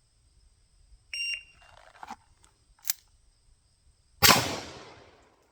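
Shot timer gives one short beep, then a few clicks and rustles of the revolver being drawn, and about three seconds after the beep a Single Action Army revolver fires one loud shot that rings away over about a second.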